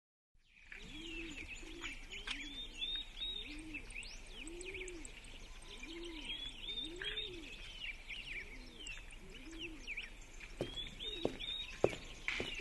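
Countryside bird ambience: small birds chirping continuously, with a dove cooing over and over in low, rising-and-falling calls. A few sharp knocks come near the end.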